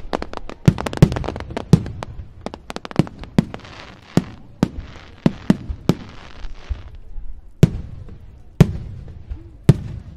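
Fireworks display: a rapid barrage of sharp bangs, then a hiss spreading for about three seconds from the middle with scattered bangs, and a few single loud bangs about a second apart near the end.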